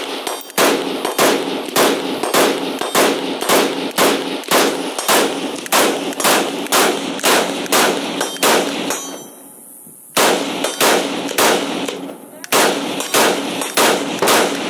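CZ Bren 2 Ms 5.56mm rifle with a 14-inch barrel fired fast in semi-automatic, about three shots a second in a long string. The shooting breaks off for about a second partway through, then a second fast string follows.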